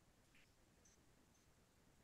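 Near silence, a dead pause in a video call.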